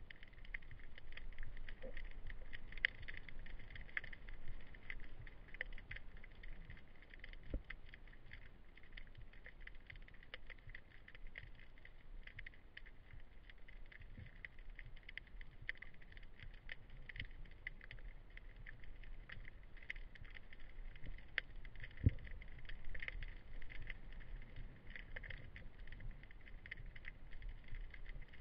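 Faint underwater ambience heard through the camera: a dense, irregular crackle of small clicks over a low rumble, with an occasional soft knock, the clearest one about 22 seconds in.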